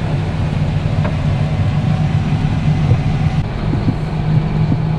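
Heavy farm machinery's diesel engine running steadily under load, a loud even hum with a low drone.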